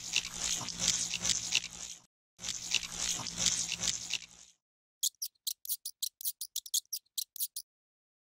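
Stop-motion sound effects: two stretches of wet squelching and crunching, about two seconds each, then a quick run of short high clicks, about six a second.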